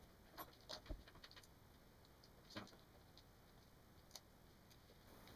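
Faint small clicks and ticks of tweezers and fingers at a Toshiba U845 laptop's LCD cable connector as its tape is peeled back and the cable is unplugged, over near silence. About half a dozen clicks, a cluster about a second in, one at two and a half seconds and one near four seconds.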